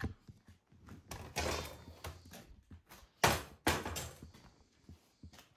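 Rustling and scattered knocks from things being handled and moved, with two louder thumps about three seconds in, half a second apart.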